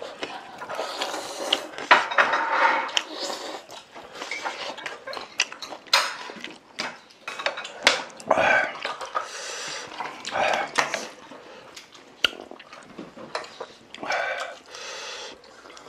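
Chopsticks and spoons clicking and scraping against bowls and dishes during a noodle meal, with scattered eating noises in between.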